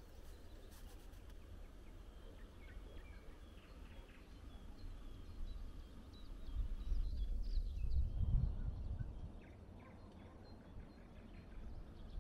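Rural outdoor ambience: faint, scattered bird chirps over a low rumble that swells for a few seconds past the middle.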